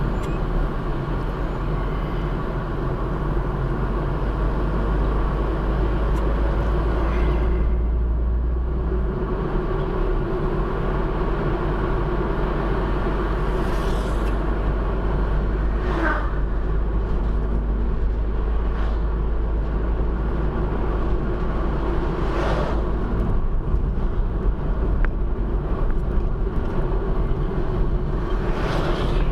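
Road noise inside a moving car: a steady rumble of engine and tyres. Oncoming vehicles pass by briefly a few times, the last of them near the end a bus.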